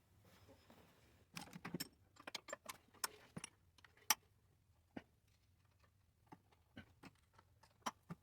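Irregular metallic clicks and clinks of small metal parts and hand tools being handled on a power wheelchair's motor assembly, thickest in the first few seconds with one sharper click about four seconds in, then sparser.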